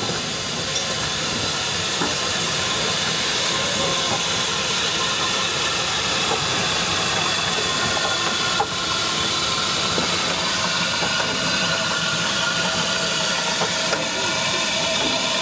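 US Army Transportation Corps S160 2-8-0 steam locomotive moving slowly, with a steady hiss of escaping steam. There is a single sharp knock about eight and a half seconds in.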